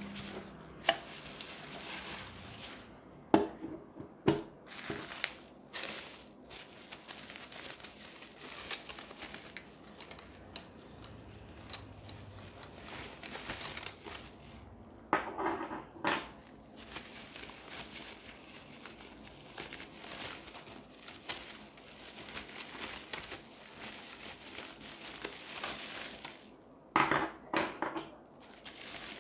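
Bubble wrap and plastic bags crinkling and rustling as they are handled and pulled off the parts, with a few sharp knocks and clatters of the parts being handled.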